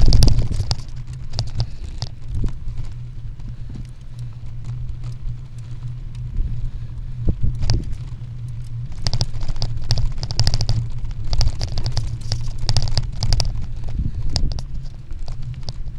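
Rattling and knocking of a vehicle-mounted camera jolting over a rough dirt road, over a steady low rumble of motion and wind on the microphone; the rattles come thicker and sharper about nine to thirteen seconds in.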